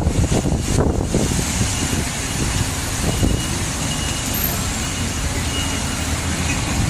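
Strong typhoon wind rushing through a wind tunnel between high-rise buildings and buffeting the microphone: a steady rushing hiss over a deep rumble.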